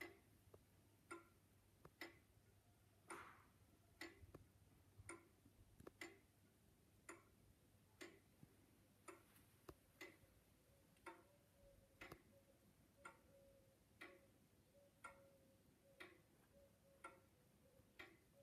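Pendulum wall clock's exposed brass movement ticking softly and evenly, about one tick a second, with a slight tick-tock unevenness between beats.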